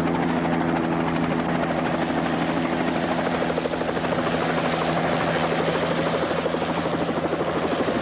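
Light skid-mounted helicopter running on the ground, with a steady engine hum under a fast, even beat of its turning rotor blades.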